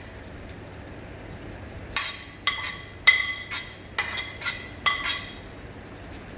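Metal spoon clinking against a plate while food is scraped off it into a pan: about nine sharp, ringing clinks in quick succession, starting about two seconds in.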